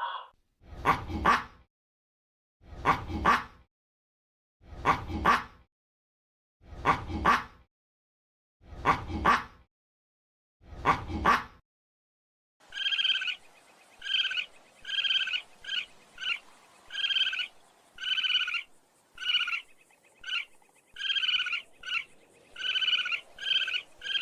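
A dog barking six times, each bark about a second long and spaced about two seconds apart, followed about halfway through by frogs croaking in a quick, steady run of short repeated calls.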